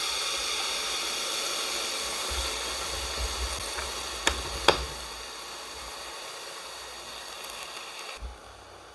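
Frozen pork belly sizzling in a waffle maker, a steady hiss with two sharp clicks about four and a half seconds in. The sizzle slowly fades and cuts off suddenly near the end.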